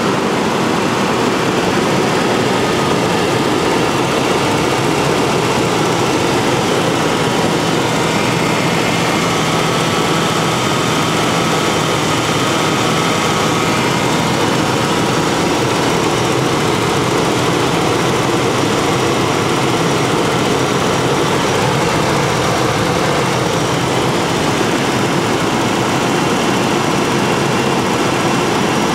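1992 Ford Explorer's 4.0-litre V6 running steadily, heard up close in the open engine bay, now fed by a newly replaced fuel pump.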